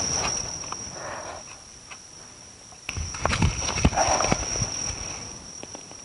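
Shovel digging into grassy soil: a scrape about a second in, then several knocks and scrapes from about three to four and a half seconds. A steady high-pitched insect chorus runs underneath.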